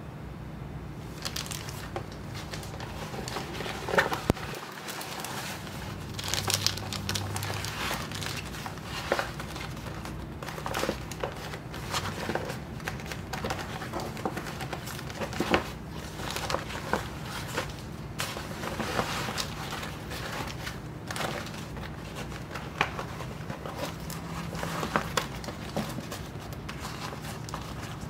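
Clear plastic wrapping crinkling and rustling in irregular bursts as it is handled, with scattered sharp crackles.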